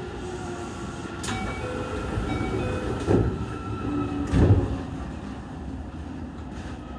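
Keio 8000-series electric train running, heard from inside the car: a steady rumble with a sharp click just over a second in, then two heavy thumps of the wheels about three and four and a half seconds in, the second the louder.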